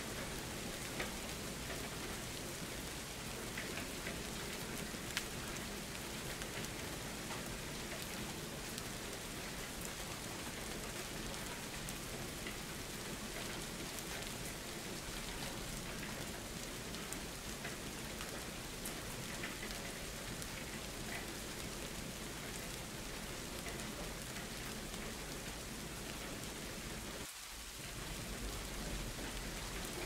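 Steady rain, an even hiss with scattered faint drop ticks. The sound briefly thins about three seconds before the end, then carries on.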